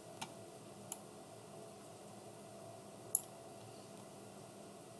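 Computer mouse clicking three times, sharp and short, the loudest a little after three seconds in, over a faint steady room hiss.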